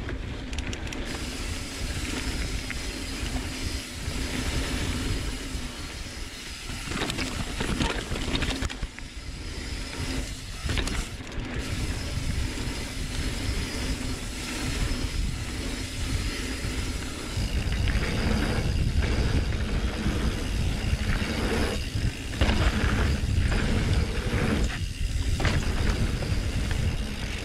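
Mountain bike riding down a dirt singletrack: tyres rolling over the dirt and wind rushing over the rider's camera microphone, a steady noisy rush with a low rumble that gets louder about two-thirds of the way in.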